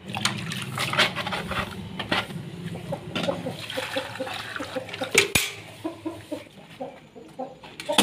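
Water splashing and pouring from a galvanized metal bucket into a plastic bowl, with a sharp metal knock about five seconds in. Birds call with short repeated notes in the background, more in the second half.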